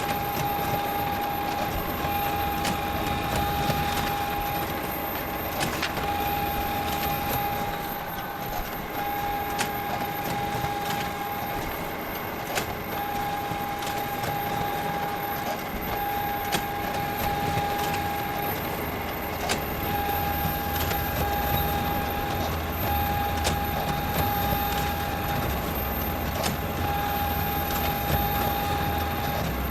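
Photocopier running continuously: a steady whine that breaks briefly every three to four seconds over a mechanical hum, with scattered clicks.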